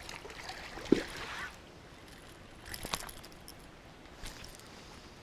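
Handling noise while a small caught fish is unhooked and held: a soft thump about a second in, then a few faint clicks.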